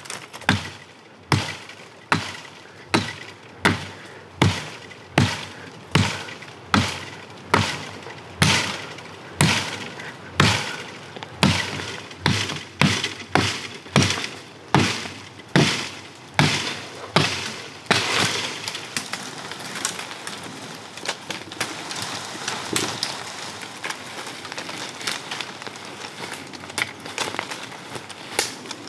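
A wood-handled blade chopping into the base of a sapling, a steady stroke about every three-quarters of a second. About eighteen seconds in the chopping stops and gives way to irregular cracking and rustling of wood, twigs and dry leaves as a sapling is pulled and bent.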